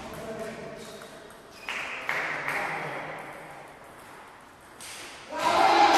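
Table tennis ball clicking off the bats and table during the last strokes of a rally, then a sudden burst of loud voices near the end.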